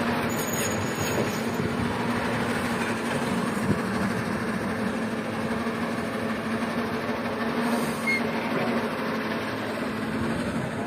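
Heavy diesel engine running steadily under load, with a single brief knock about four seconds in.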